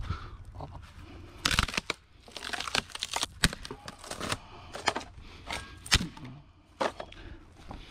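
Scrap being handled and loaded: a run of irregular knocks and clatters with scraping and rustling between them. The sharpest knocks come about a second and a half in and again about six seconds in.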